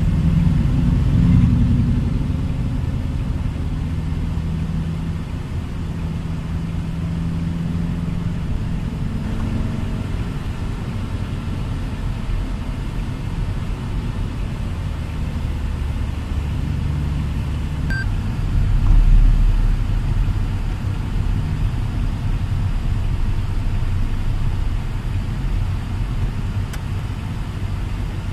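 Steady low rumble of engine and road noise heard from inside a moving car's cabin at highway speed. It swells briefly about two-thirds of the way through.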